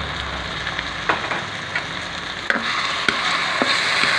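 Canned tuna sizzling in hot oil in a wok with sautéed garlic and onion, while a spatula is worked through it with several sharp clicks against the pan. The sizzle grows louder about two and a half seconds in.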